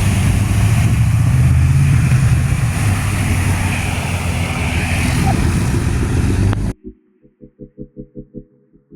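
Motor vehicle running close by: a loud, steady low rumble with hiss. About seven seconds in it cuts off suddenly, and a soft pulsing low tone follows at about four beats a second.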